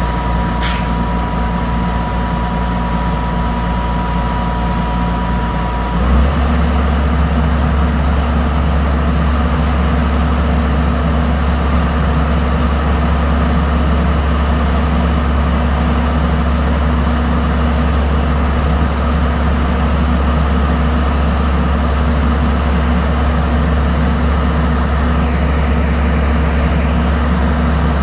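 A vehicle engine running steadily. About six seconds in, its low note changes and gets slightly louder, and a thin steady whine that was running alongside it stops.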